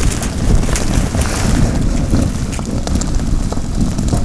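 Wind buffeting the microphone with a heavy, uneven rumble. Behind it, an egg fries in oil in a pan, sizzling with many small crackles.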